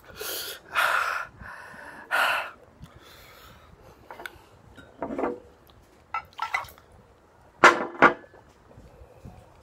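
A man's sharp, breathy panting and hissing exhales as he reels from the heat of very spicy noodles, four of them in the first couple of seconds. Then a few short clinks and knocks of a glass and dishes, the loudest a quick pair just before he drinks from a glass of milk near the end.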